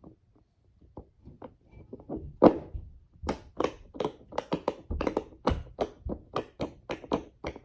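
Silicone crab-shaped push-pop fidget toy having its bubbles pressed one after another: short popping clicks, a few faint ones at first, then a steady run of about three a second from a couple of seconds in.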